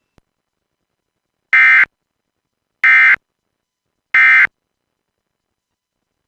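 Emergency Alert System end-of-message data tones: three short buzzing bursts of SAME digital code, about 1.3 seconds apart, signalling that the tornado warning message has ended.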